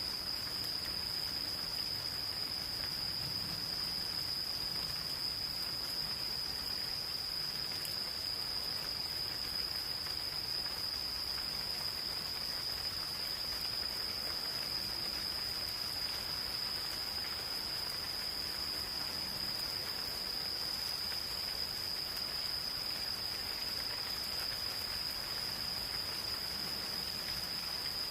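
Insects singing a continuous, unbroken high-pitched note over the steady hiss of gentle rain.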